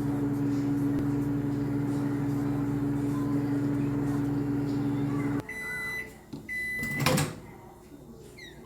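Microwave oven running with a steady hum that cuts off about five seconds in, at the end of its cooking cycle. Two high beeps follow, then a loud clunk.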